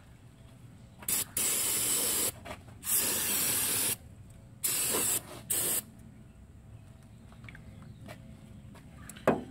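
Aerosol can of brake cleaner spraying in a series of hissing blasts: a short puff, then about four longer sprays of up to a second each, washing off leaked brake fluid and dirt. A short knock near the end.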